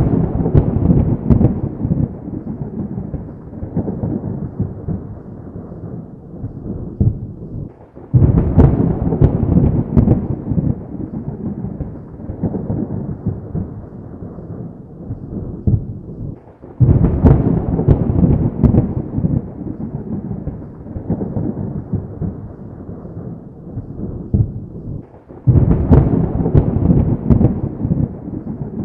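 Thunderclaps during a heavy thunderstorm. Each starts with a sudden sharp crack and then rolls away in a long rumble. A new clap breaks out about every eight and a half seconds, four in all.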